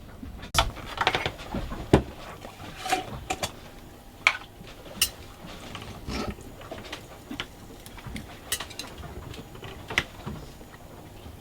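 Irregular small clicks, taps and knocks, about a dozen scattered over several seconds, from objects being handled.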